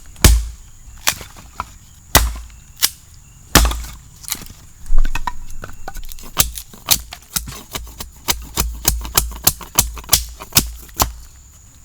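Repeated sharp chopping strikes, scattered at first, then a steady run of about three a second from about halfway through.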